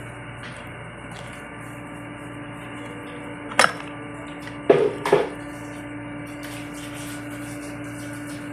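Whirlpool washing machine running with a steady hum, with three sharp knocks about three and a half to five seconds in.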